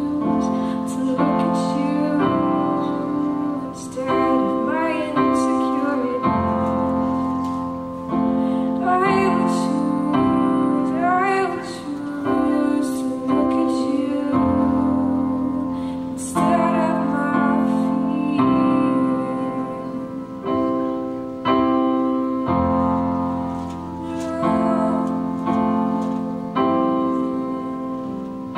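Keyboard playing slow, sustained worship chords that change every second or two, with a voice singing over it in places.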